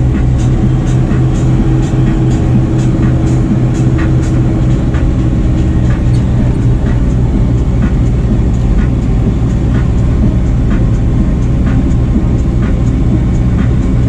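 Fendt tractor's diesel engine running steadily under way on the road, heard from inside the cab. A light, regular clicking comes about twice a second throughout.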